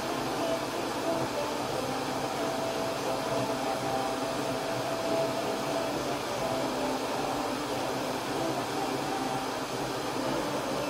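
Laser cutter's fans running: a steady whirring hum with a faint whine.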